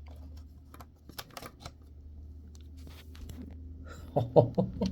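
A USB-C cable and its plug being handled and pushed into a laptop port: scattered light clicks and rustles, then a few louder knocks near the end, over a steady low hum.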